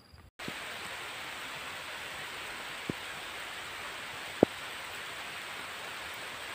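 Steady heavy rain falling, an even hiss that cuts in just after the start. Two sharp taps come about three and four and a half seconds in, the second the loudest.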